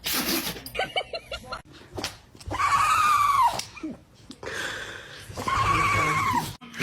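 A dog vocalizing: a short noisy burst, then a quick run of short yips, then two drawn-out calls about a second long that fall in pitch at the end.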